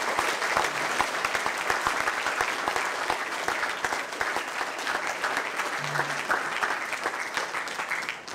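Audience applauding, a dense steady patter of many hands clapping that eases off near the end.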